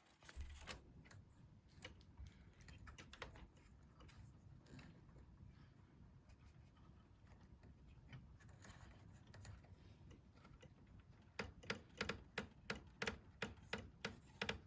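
Light clicks and taps of small parts being handled while working on a cassette deck, over a faint low hum. Near the end comes a run of sharper clicks, about three a second.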